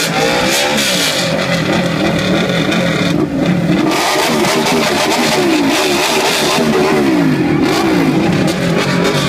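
Ducati Panigale 899's V-twin engine revved over and over while standing still, its pitch climbing and falling with each throttle blip, about once a second.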